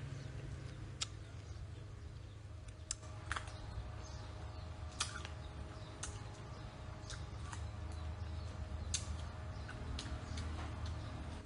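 Close mouth sounds of someone biting and chewing sour fruit: scattered sharp wet smacks and clicks, about one every second or so, over a steady low rumble.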